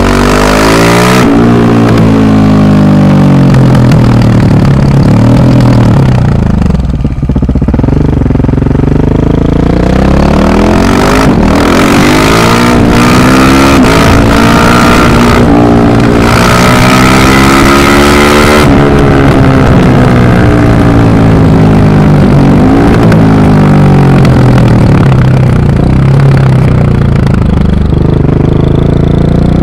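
Rally car engines revving hard and easing off over and over, the engine note climbing and falling through the gears. There are a few sharp cracks about halfway through, and stretches of loud rushing noise.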